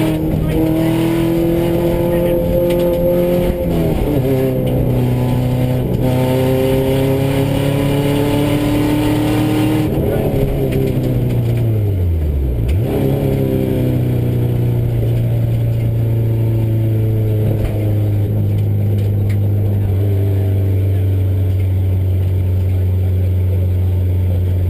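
Subaru rally car's engine heard from inside the cabin, rising in pitch as it pulls through the gears with a shift about four seconds in, then falling steeply as the car slows at about ten seconds, and settling to steady low revs for the rest.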